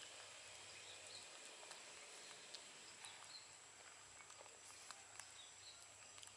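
Near silence: faint outdoor ambience with a thin steady high-pitched hiss and a few soft scattered clicks.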